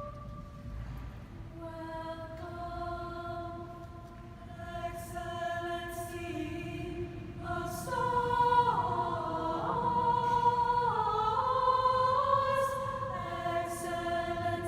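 Choir singing held chords that move from one to the next, swelling louder about eight seconds in.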